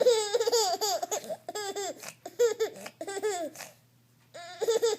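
A baby laughing in a run of quick, high-pitched giggling bursts for about three and a half seconds, pausing briefly, then laughing again near the end.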